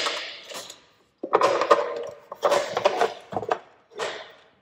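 Handling noise from a Milwaukee M18 metal-cutting circular saw that is switched off. It is gripped and tilted up on a metal workbench, and its housing scrapes, knocks and rattles against the bench and loose metal chips in several irregular bursts.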